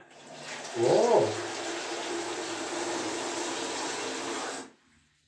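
Water running from a tap into a bathroom sink for about four and a half seconds, with a steady whine in the pipes, then shut off suddenly.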